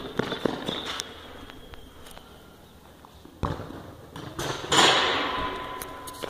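A football being kicked on a concrete futsal court: a sharp thud about three and a half seconds in, then a louder rattling crash a second later that fades away over about a second.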